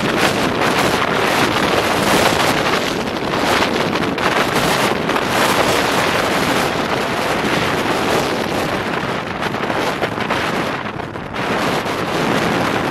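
Steady rushing wind and road noise from a car at highway speed, with wind buffeting the microphone. The noise dips briefly near the end.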